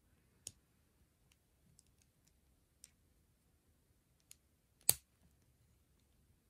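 LEGO plastic pieces clicking against each other as they are handled and pressed together: a scatter of light clicks, with one louder snap about five seconds in.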